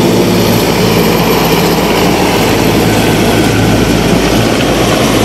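Mil Mi-17 military transport helicopter at take-off power, lifting off and climbing away: loud, steady rotor and turbine noise with a low hum.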